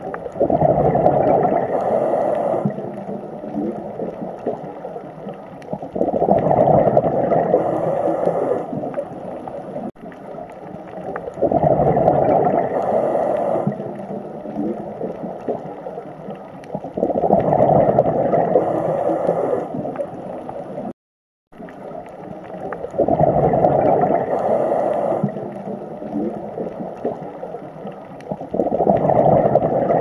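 Water sound that swells up and falls back about every six seconds, with a brief cut-out about two-thirds of the way through.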